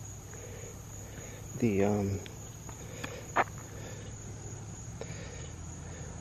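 Crickets chirring in a steady, unbroken high trill. A short voiced murmur from a person breaks in about two seconds in, and a single sharp click comes about a second and a half later.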